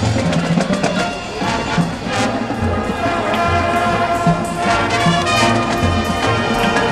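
High school marching band playing: the brass section holds sustained chords over drumline and bass drum hits.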